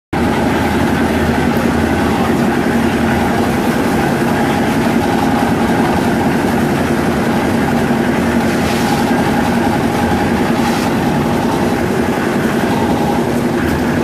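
Engine-driven drum concrete mixer running steadily, its engine droning as the drum turns. A couple of brief rushes of noise near the middle as baskets of sand and stone are tipped into the drum.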